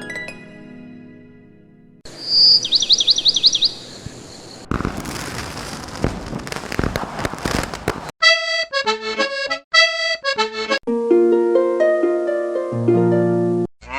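A string of short sound-effect and music clips cut one after another: a fading ringing note, a fast warbling up-and-down whistle, a few seconds of noisy crackling, then short pitched melody notes and held chords.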